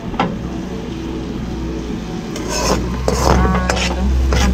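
A metal spoon stirring and scraping minced garlic in hot olive oil in a wok, with irregular scrapes against the pan over a steady low hum.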